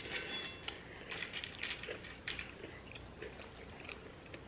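Quiet eating sounds: soft crackles, clicks and small squeaks from chewing and handling food and packaging, busiest in the first two and a half seconds.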